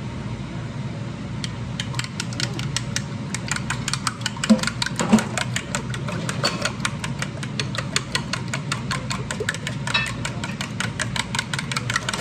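Kitchen range-hood vent fan running with a steady hum, over a fast, even clicking of about five clicks a second and two louder knocks about five seconds in.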